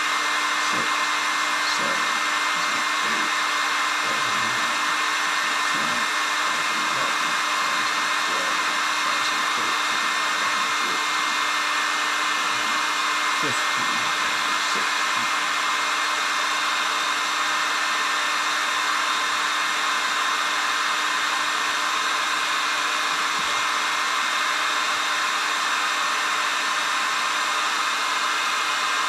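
Heat gun running steadily, blowing hot air to heat lead jig heads for powder coating.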